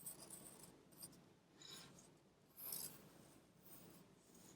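Faint scratching of a pencil on paper: several short strokes drawing small spots.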